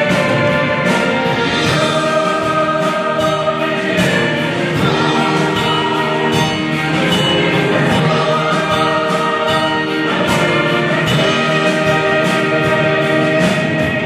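Mixed choir singing with an orchestra of strings, flute and piano in a live performance, at a steady full volume.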